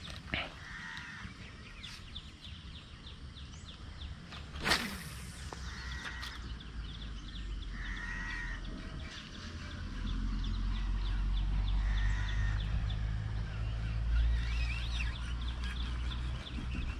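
Bird calls repeated every few seconds, with one sharp click about five seconds in and a low rumble building from about ten seconds in.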